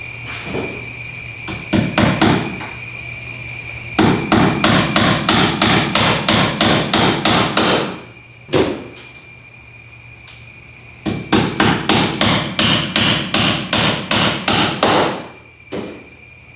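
Hammer driving nails through metal hurricane straps into wooden rafters. A few light taps come first, then two runs of quick strikes at about four a second, each lasting about four seconds, over a steady high-pitched tone.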